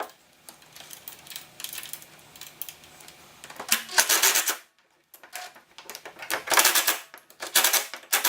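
Cordless impact driver hammering screws in, in short bursts of rapid metallic clicking; the longest burst, about a second, comes about four seconds in, and two shorter ones follow near the end.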